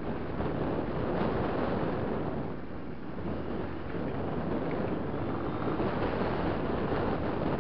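Enduro motorcycle riding along a gravel dirt track, heard mostly as steady wind rush on the camera's microphone with the bike's engine underneath.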